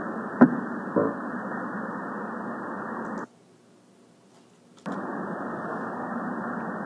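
Muffled, hissy rumbling noise from a dinosaur sound-effects track, with two sharp thuds within the first second. It cuts out just past three seconds in for about a second and a half, then comes back steady.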